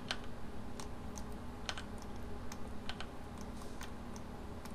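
Computer keyboard and mouse clicks: a handful of irregular, sharp clicks over a faint steady hum.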